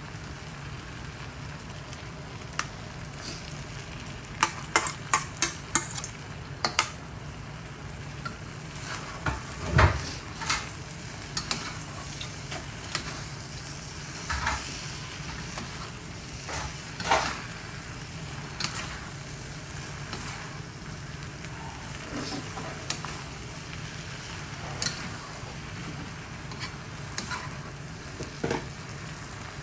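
Noodles stir-fried in a wok, sizzling, with repeated scrapes and clinks of a metal spatula and ladle against the wok over a steady low hum. A quick run of clinks comes about five seconds in and a loud knock about ten seconds in.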